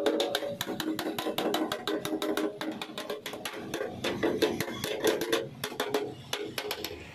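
Steel body panel of a 1973 Vespa Sprint being beaten with a hammer against a hand-held dolly: a quick, steady run of metallic blows, several a second, as the dented metal is straightened.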